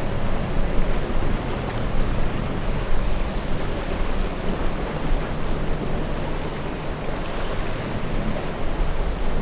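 Breaking waves and wind buffeting the microphone, with the low drone of a boat's twin outboard motors underneath.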